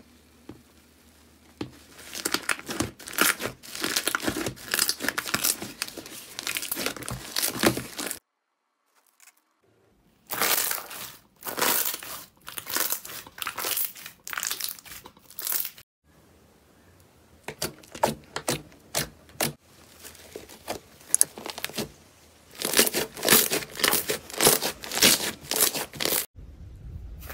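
Hands squeezing, stretching and pressing slime, giving dense crackling clicks in several bursts of a few seconds with short pauses between them.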